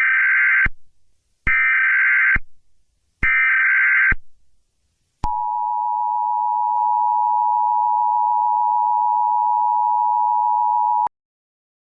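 Emergency Alert System SAME header: three short bursts of warbling data tone, each just under a second long and spaced evenly, followed about a second later by the two-tone EAS attention signal, a steady harsh dual tone held for about six seconds and then cut off.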